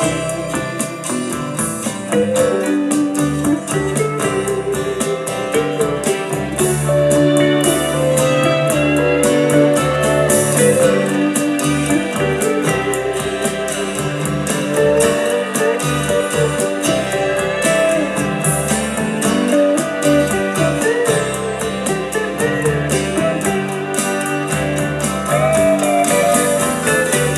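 Music: an instrumental break of a rock song, with guitars and a gliding steel guitar over a steady drum beat.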